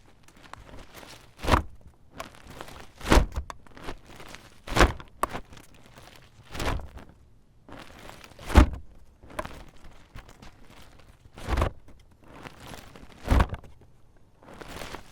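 Umbrella worked open and shut over and over: the canopy fabric rustles, and each cycle ends in a sharp snap, about every two seconds.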